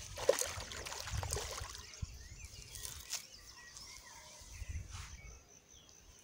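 Outdoor ambience: a low rumble on the microphone that comes and goes, a sharp click about a third of a second in with a few fainter ones later, and faint short bird chirps.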